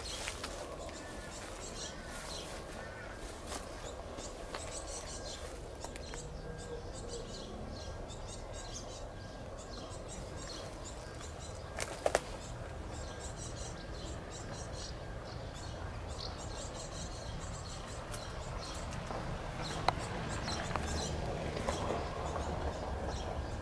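Outdoor ambience: a steady low rumble with faint bird chirps and light rustling. There are two sharp clicks close together about halfway through and another single click later on.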